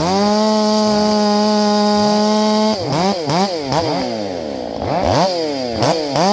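Port-tuned Stihl MS500i fuel-injected two-stroke chainsaw snapping up to full throttle and holding there steadily for almost three seconds, then blipped several times in quick succession, the revs rising and dropping fast, before snapping back to full throttle near the end. The very quick climb and fall of the revs shows the saw's sharp throttle response.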